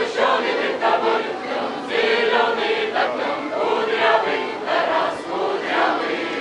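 A mixed choir of men and women singing, accompanied by an accordion.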